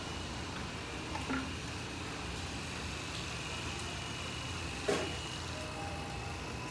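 Steady hum and hiss of electric dog-grooming equipment running, with a thin high whine, a couple of light clicks and a sharper click about five seconds in.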